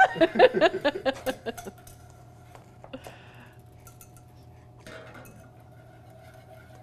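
A woman sings a few playful notes for about the first second. Then come light clicks of a knife chopping on a plastic cutting board and short scrapes of a whisk stirring in a small saucepan, over a steady faint hum.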